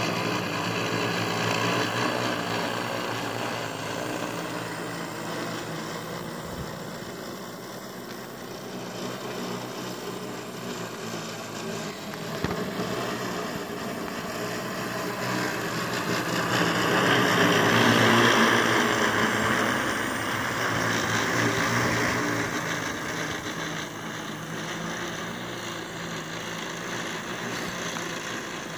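Hydrogen fuel-cell-powered multirotor drone in flight, its propellers making a steady buzzing hum. The hum swells louder past the middle, then eases off.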